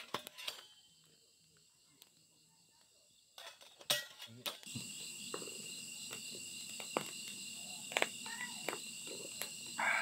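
Nearly quiet for about the first three seconds, then a steady chorus of night insects chirping in high pitches sets in. A few sharp clicks sound over the chorus.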